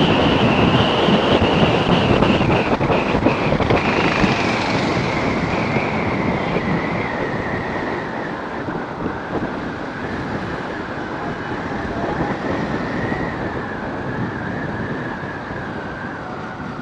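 Wind rushing over the microphone on a moving TVS Apache RTR 180 motorcycle, with a high whine that slowly falls in pitch while the overall sound eases off.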